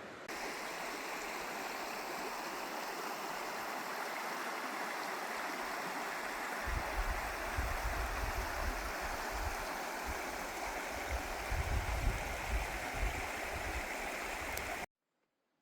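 Steady rushing of river water. From about a third of the way in, low uneven rumbles join it, and the sound cuts off suddenly near the end.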